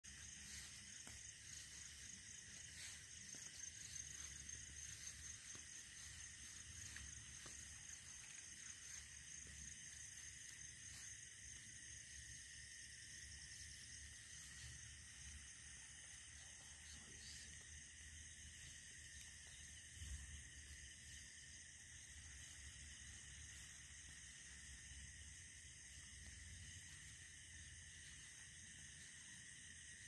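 Faint chorus of night insects: several steady high-pitched trills, one of them pulsing rapidly through the first several seconds.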